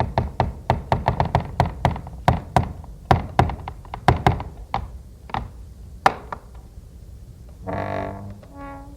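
Wooden church door giving a quick string of sharp snaps and pops that slow and thin out over about six seconds, followed near the end by a short creak and a brief higher squeak.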